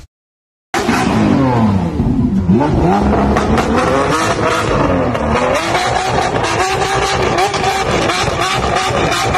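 Lamborghini Aventador SVJ's V12 revving through its exhaust. It starts about a second in with the revs falling away, climbs again, then pulses in quick repeated blips, about two to three a second.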